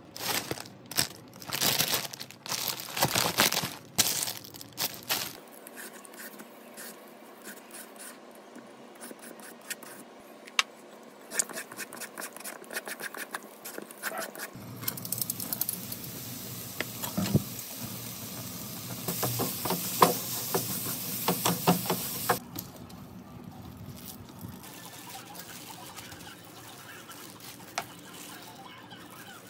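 Plastic grocery bag rustling and crinkling as items are pulled out, for the first few seconds, followed by food-preparation handling sounds, including a julienne peeler scraping a carrot in repeated strokes.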